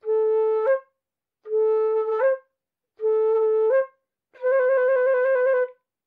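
A flute-like wind instrument playing four notes: three short notes, each stepping up a little in pitch just before it ends, then a longer note held with an even waver.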